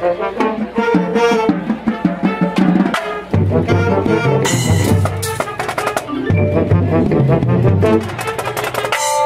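Marching band playing: sousaphones, saxophones and other brass over pit percussion and drums in a busy, rhythmic passage. A held brass chord starts near the end.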